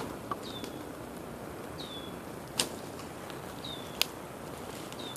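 A bird repeating one short high call, a quick downward slur onto a held note, about every one and a half seconds. Two sharp clicks stand out as the loudest sounds, one near the middle and one about four seconds in.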